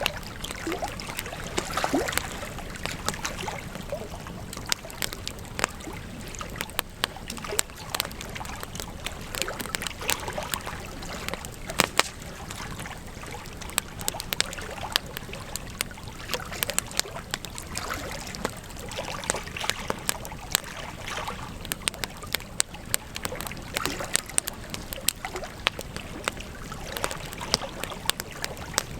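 Campfire crackling: irregular sharp crackles and pops over a steady hiss of burning wood, with a louder snap about twelve seconds in.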